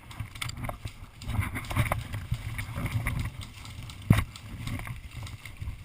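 Low, uneven rumbling with scattered small knocks and clicks, the noise of a person moving outdoors with the microphone, and one sharp crack about four seconds in.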